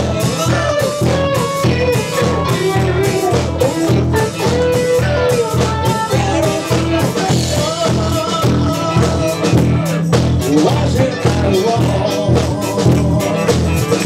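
Live band playing a funk-rock song: drum kit keeping a steady beat under bass, electric guitars and keyboard, with a melody line moving over them.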